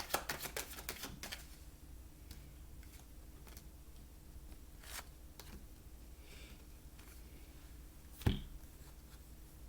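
Tarot cards being shuffled by hand: a quick run of card flicks in the first second or so, then scattered soft taps, and a single louder thump near the end.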